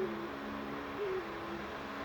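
Owl hooting, two short low hoots about a second apart, over a steady hum of distant traffic.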